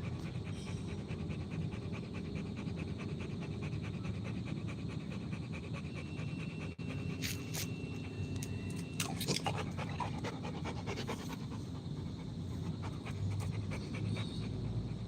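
Rottweiler panting rapidly and steadily, with a few light clicks about seven to nine seconds in.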